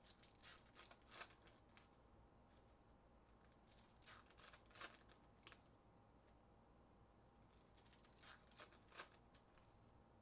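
Topps Chrome trading cards flicking and sliding against each other as a stack is thumbed through by hand. The faint flicks come in three short clusters: about a second in, around four to five seconds, and around eight to nine seconds.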